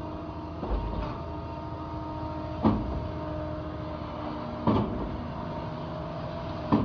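Concrete pump running at full RPM, pumping water forward through the line. The engine and hydraulics run steadily, and a sharp clunk comes about every two seconds as the pump changes stroke.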